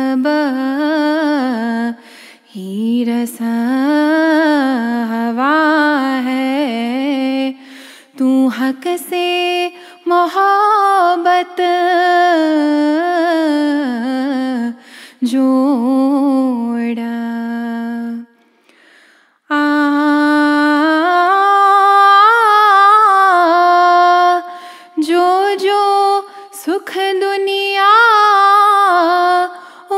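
A woman singing a ginan, an Ismaili devotional hymn, unaccompanied, in long ornamented melodic phrases that dip and rise in pitch, with short breaths between phrases and a longer pause about 18 seconds in.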